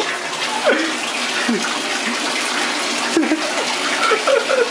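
Shower running behind a closed shower curtain: a steady spray of water, with a few short faint voice-like sounds over it.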